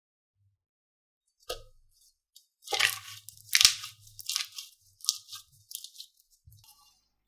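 Slime being squeezed and pressed by hand, giving irregular crackling, crunchy squishes that start about a second and a half in, with the loudest a couple of seconds later.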